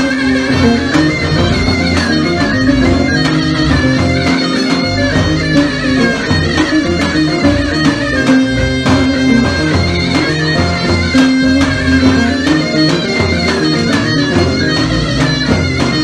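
Instrumental Turkish folk music with a steady beat and a sustained melody, and no singing.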